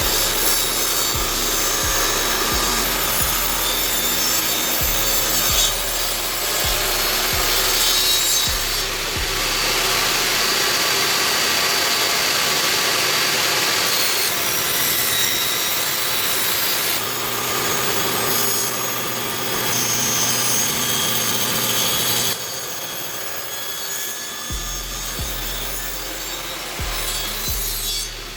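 A saw cutting through an MDF speaker box, a steady rasping cut that runs on with only small changes in level.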